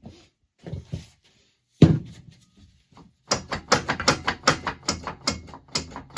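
Hammer blows on parts of a seized VW 1300cc air-cooled engine: a few scattered knocks, one heavy blow about two seconds in, then rapid even taps about five a second from about three seconds in.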